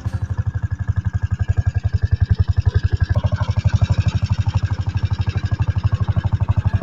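Lanz Bulldog tractor's single-cylinder two-stroke hot-bulb engine chugging steadily with a rapid, even, low beat.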